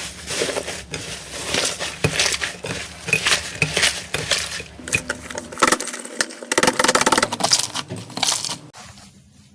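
Slime being squeezed and poked by hand, giving dense crackling and popping clicks that stop sharply near the end.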